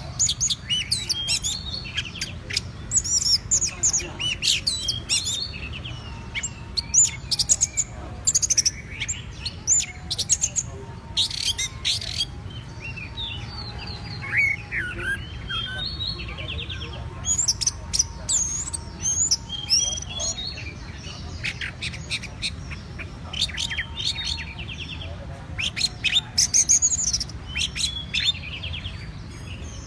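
Orange-headed thrush singing a long, varied song of quick high whistled and chattering phrases, with short breaks between them. It is in the rare trance-like, enraptured bout of full song that keepers call 打茫. A steady low rumble lies underneath.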